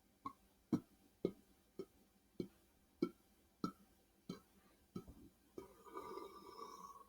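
Faint mouth sounds of chewing food: about ten short wet clicks at an uneven pace of roughly one every half second to two thirds of a second. A longer, rougher sound follows near the end.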